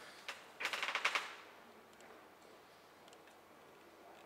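Clicking on a laptop: a single click, then a rapid run of clicks about half a second long, about a second in; the rest is faint room tone.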